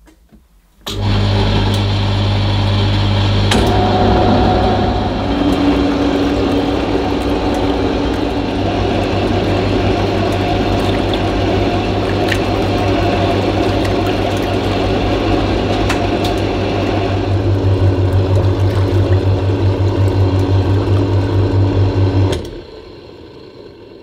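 Tefal Washboy portable washing machine running its first rinse cycle, the motor humming steadily while it agitates the rinse water and tea towels in the tub. It starts about a second in, pulses harder in the last few seconds, and then stops abruptly near the end.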